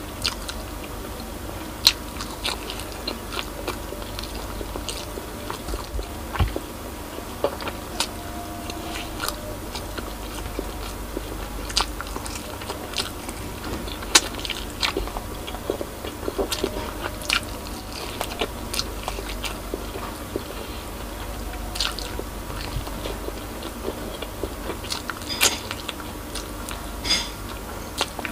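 A person biting and chewing braised pork spare ribs held in the hands, with many sharp, irregular clicks and crunches of mouth on meat and bone.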